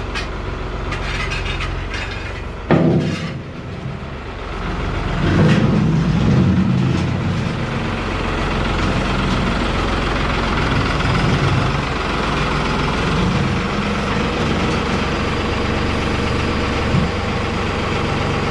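Tractor engine running steadily, with a single sharp knock about three seconds in. The engine gets louder and heavier from about five seconds in and stays that way.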